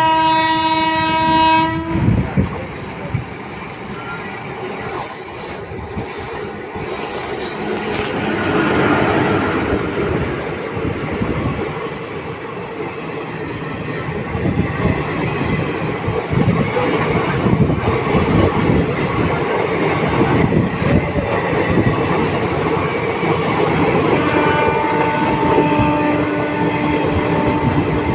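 An electric locomotive's horn sounds and cuts off about two seconds in. A passenger train then runs past with wheels clattering over the rail joints and high-pitched wheel squeal over the first several seconds. A horn-like tone sounds again, on and off, near the end.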